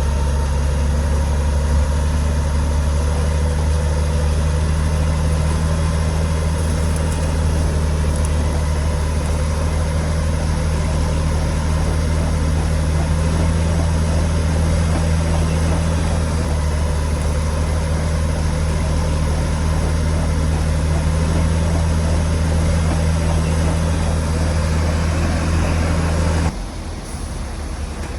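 Heavy diesel engine of earthmoving machinery running at a steady speed, a deep even drone. A little before the end the drone cuts off suddenly, leaving quieter machinery noise.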